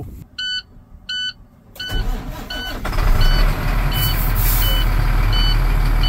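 International WorkStar truck's diesel engine cranking and catching about two seconds in, then running steadily on a cold start. A cab warning beeper sounds throughout, two longer beeps first and then short beeps about every 0.7 s.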